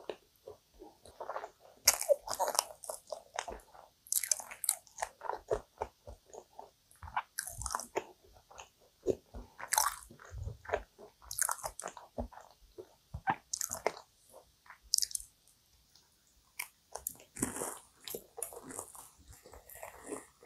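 Close-miked eating of a caramelized kouign-amann pastry: a series of crisp, crunchy bites and crackling crust, with chewing in between.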